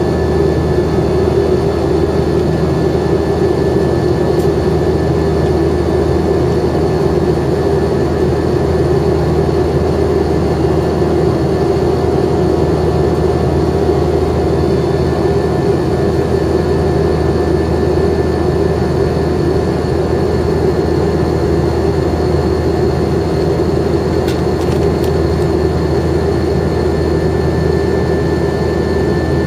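Airbus A321 jet engine and airflow noise heard inside the passenger cabin beside the engine in flight: a loud, steady rush with a few steady whining tones over it, unchanging throughout.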